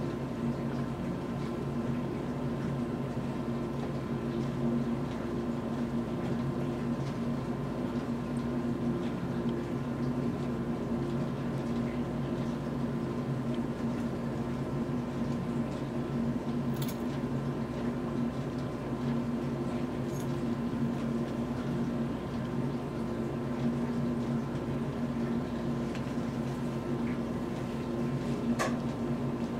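Steady machine hum of room equipment, even and unchanging, with a few faint clicks, one of them near the end.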